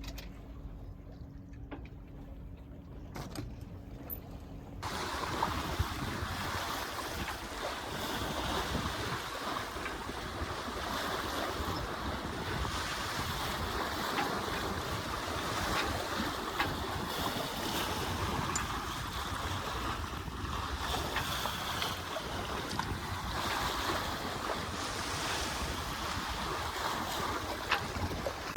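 Wind and water rushing past a sailboat under sail, with wind buffeting the microphone; the noise becomes louder about five seconds in.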